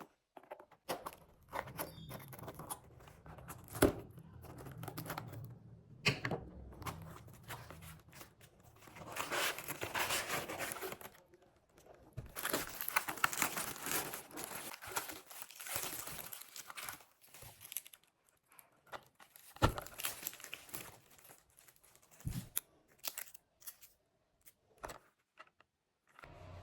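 Handling noises: stretches of crinkling and tearing, broken by scattered sharp clicks and knocks.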